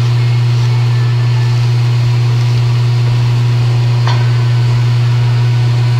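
Steady, loud low electric hum of a small motor, with a faint light tap about four seconds in.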